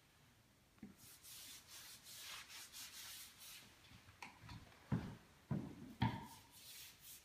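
A hand-held applicator pad rubbing dark stain onto a hardwood floor along the baseboard, in quick scrubbing strokes, while the edge is cut in by hand. About five seconds in come three short knocks close together, louder than the rubbing.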